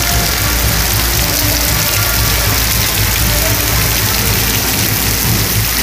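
Heavy rain falling steadily on a paved street, a constant hiss, over a low steady rumble.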